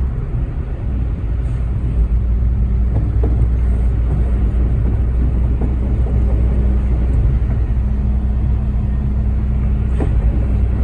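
Concrete mixer truck's diesel engine running steadily while the load is poured, with one sharp click near the end.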